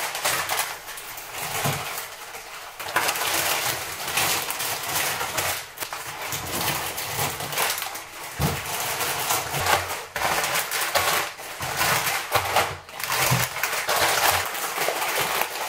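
Plastic instant-ramen packets crinkling and rustling as they are handled and packed into plastic storage bins, with a few soft knocks of packets and bins.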